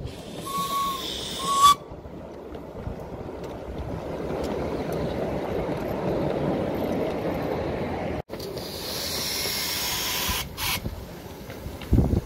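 Miniature steam locomotive giving two short whistle toots over a hiss of steam, then the train rumbling steadily past on its track. About eight seconds in the sound cuts to a loud hiss of escaping steam lasting a couple of seconds.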